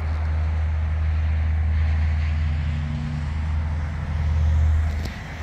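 Steady low rumble of nearby vehicle noise, with a fainter engine tone coming and going in the middle.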